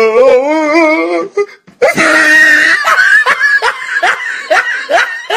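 People laughing: a drawn-out, wavering laugh in the first second, then a high squeal and a run of short, quick bursts of laughter, about two or three a second.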